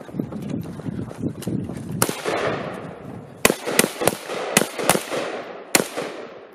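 AKM rifle (7.62×39 mm) firing single shots: one about two seconds in, then six more in quicker succession, each trailing off in echo.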